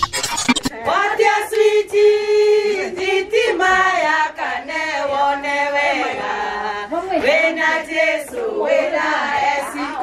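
A group of women singing together in chorus, several voices overlapping as the melody rises and falls.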